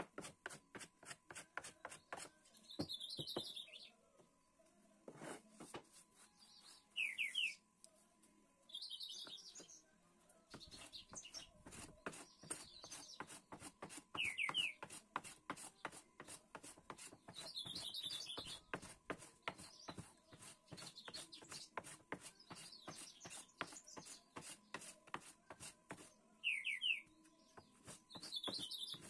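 Hand plane being pushed along a wooden board in repeated strokes, shaving it with scraping and light knocks, while birds chirp in short calls every few seconds.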